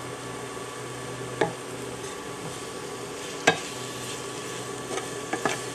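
Chicken of the woods mushroom pieces sizzling in olive oil in a pan while being stirred, with two sharp knocks against the pan about one and a half and three and a half seconds in.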